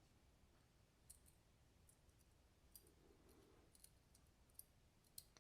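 Near silence with a few faint, scattered small clicks, about five in all, from the small pivot parts of a folding knife (washer, bearings) being handled during disassembly.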